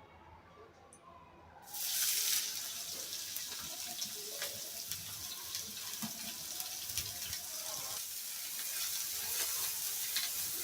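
Food sizzling in hot oil in a pan, starting suddenly about two seconds in as a steady hiss with small crackles and pops.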